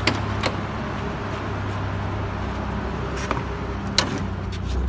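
A few sharp clicks and knocks from the Alfa Romeo's door and cabin being handled, the loudest about four seconds in, over a steady low engine hum.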